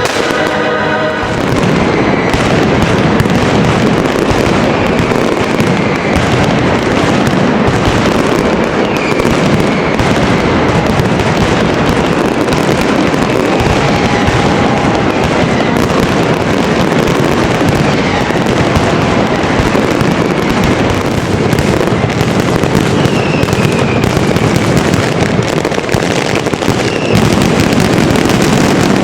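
Fireworks going off in a dense, continuous barrage of bangs and crackles, with a few short whistles over it. Music plays for about the first second and then cuts off.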